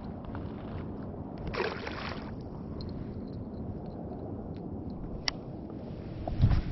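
Creek water gurgling and sloshing at the bank, with a short burst of splashing noise about a second and a half in and a low thump near the end.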